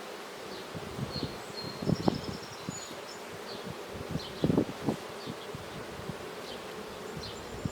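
Honeybees buzzing in a steady hum around an opened hive, with a few short knocks from frames or tools being handled.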